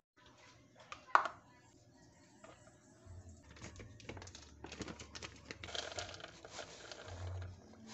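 Plastic dog-food bag crinkling and rustling as dry kibble is spooned out into a plastic bowl of rice, with scattered small clicks of pieces and handling. One sharp click about a second in.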